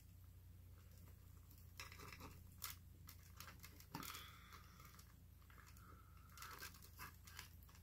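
Near silence with a handful of faint, scattered clicks and rustles, the small handling and eating noises of a mukbang.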